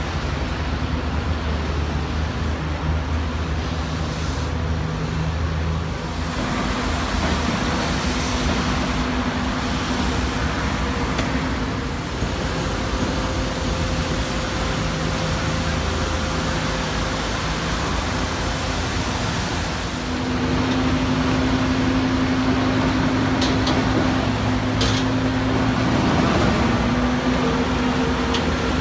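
Engines of heavy vehicles and work machinery running steadily over a haze of road-traffic noise, the engine drone shifting in pitch a few times.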